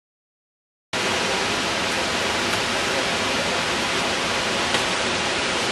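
Steady rushing of a mountain jungle stream, an even hiss of running water that starts suddenly about a second in.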